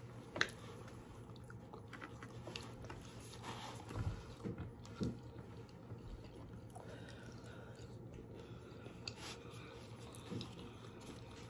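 Faint sounds of people biting and chewing food, with a few short clicks scattered through, the sharpest about half a second in and two more around four and five seconds in.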